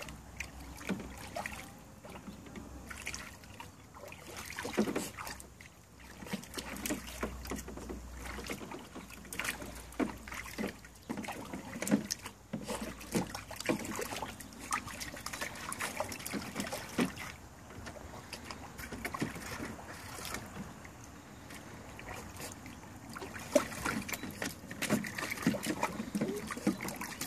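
Irregular splashing and sloshing of water in a dog's wading pool as the dog plays after a swimming toy fish.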